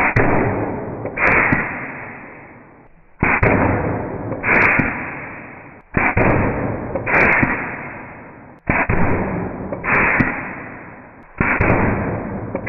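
VEVOR 14-gauge pneumatic T-nailer firing nails through plywood, about five shots spaced roughly three seconds apart. Each shot is a pair of sharp bangs about a second apart, each trailing off in a long fading hiss.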